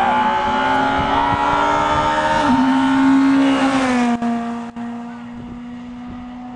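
Rally car engine running hard at high revs as the car passes, holding one steady note. The pitch steps down about two and a half seconds in and again around four seconds in, and the sound is quieter after that.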